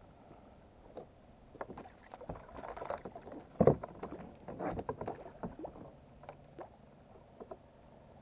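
A hooked Spanish mackerel splashing at the surface beside a fishing kayak as it is brought in, with a run of irregular knocks and clatters around the kayak. The loudest is a single sharp knock about halfway through.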